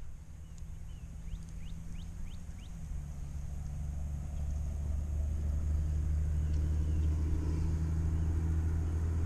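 Helicopter approaching: a low, steady rumble with a deep hum that grows louder from about three seconds in.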